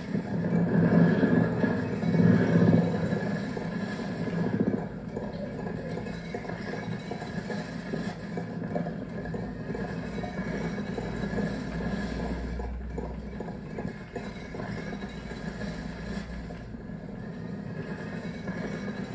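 Layered cassette tape loops playing on several Walkmans and mixed live through a small mixer, making a dense, grainy musique-concrète texture. It is loudest in the first few seconds, then settles, with a deep low hum swelling briefly about halfway through.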